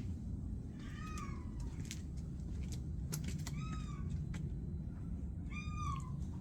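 A cat meowing three times: short calls that rise and fall in pitch, about a second in, midway, and near the end. A steady low rumble and a few sharp clicks sound beneath them.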